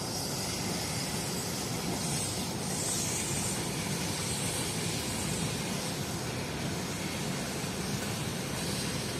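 Freight train of open gondola wagons rolling past on the rails, a steady noise of wheels on track with a hiss over it.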